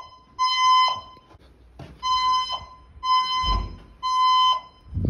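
Fire alarm voice-evacuation speakers sounding the temporal-three evacuation tone. It is a roughly 1 kHz beep in half-second pulses, here one beep and then a group of three evenly spaced beeps. Two low thumps come under it near the middle and the end.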